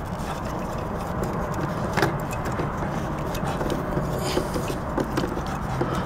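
Scraping and a few small clicks as wired connectors are handled and pushed onto a refrigerator compressor's terminals, over a steady low background rumble.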